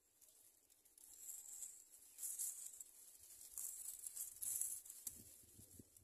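Greater coucal chicks hissing in the nest: several high, breathy hisses lasting from a fraction of a second to about a second, the defensive hiss these chicks give when disturbed. A few soft low bumps near the end.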